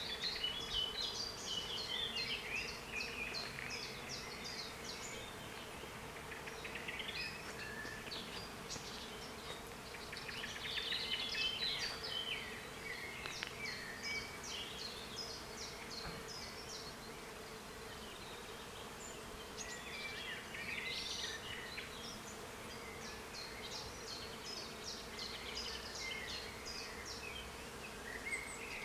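Songbirds singing in phrases of rapid trills and chirps, over a faint steady hum.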